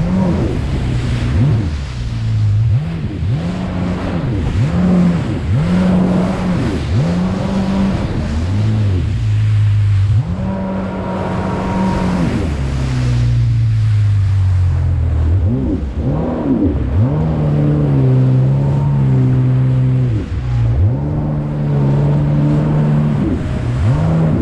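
Jet ski engine running under throttle. Its pitch holds steady, then drops and climbs again every second or two as the throttle is let off and opened, over wind and water noise.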